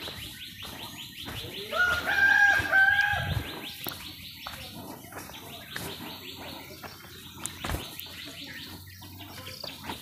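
A rooster crows once, loudly, about two seconds in, a call in several held notes. A steady, fast-pulsing chirr goes on underneath.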